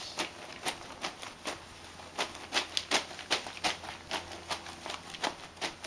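A folded cloth or sponge dabbed again and again onto a stencil lying flat, making a soft, rhythmic tapping about three times a second, quickest and loudest around the middle.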